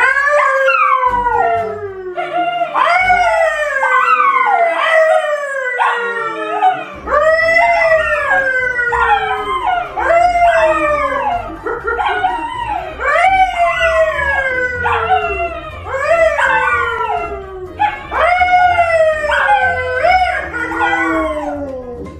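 A yellow Labrador and a brown poodle howling along with a man: a long run of falling howls, about one a second, the voices overlapping.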